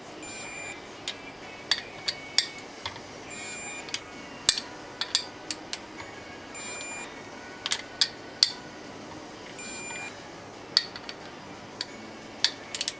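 Irregular sharp metallic clinks and taps, some loud, of hand tools and metal engine parts being handled during an engine overhaul. Short high beeping tones come in between them several times.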